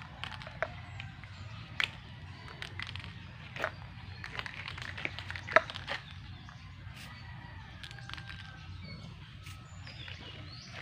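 Scattered sharp clicks and taps from an aerosol spray paint can being handled, the loudest about halfway through, over a steady low wind rumble.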